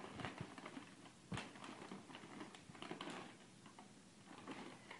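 Gift wrapping paper and tissue paper crinkling and rustling faintly in short scattered bits as a pug puppy noses and tears into a present, with a sharper crackle about a second in.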